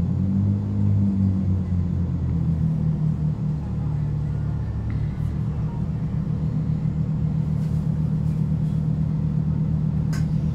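A Chiltern Railways diesel multiple unit's underfloor engine running, heard from inside the carriage: a low drone whose note shifts over the first few seconds and then holds steady. A sharp click comes near the end.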